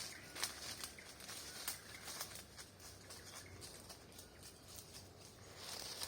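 Faint outdoor ambience: a steady low hiss with scattered small clicks and rustles.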